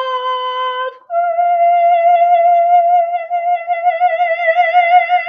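A woman singing unaccompanied, holding the song's closing notes: a short note that breaks off about a second in, then a higher note held for over four seconds, with vibrato widening toward the end.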